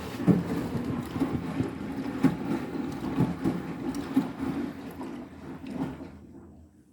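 Front-loading washing machine drum turning two pillows in rinse water, with a churning wash sound and irregular soft thuds. The tumbling dies away near the end as the drum pauses.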